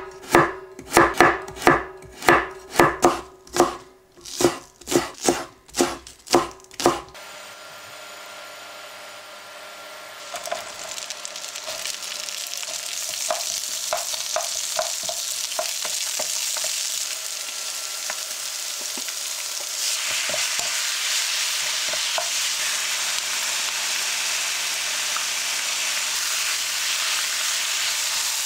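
A chef's knife chopping carrots on a wooden cutting board, about two strokes a second, stopping about seven seconds in. Then vegetables sizzle as they stir-fry in a frying pan, with small knocks of a wooden spoon, and the sizzle grows louder about twenty seconds in.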